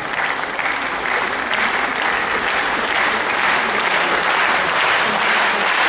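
Audience and performers applauding, a steady clapping that swells a little over the first couple of seconds.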